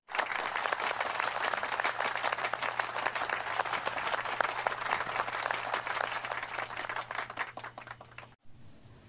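Applause: many hands clapping in a dense, steady patter that cuts off suddenly near the end.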